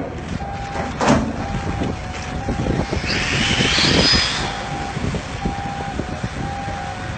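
Steady low rumble of harbour machinery, with a tone of one pitch beeping on and off throughout. There is a sharp knock about a second in, and a loud high screech with a wavering pitch from about three seconds in.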